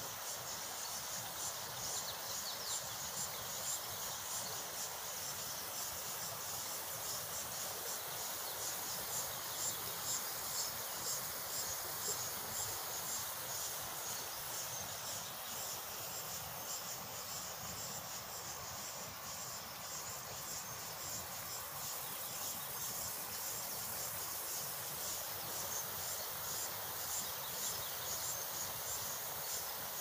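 Insect chorus of cricket-like chirping, a high pulsing trill that goes on steadily, over a steady background hiss.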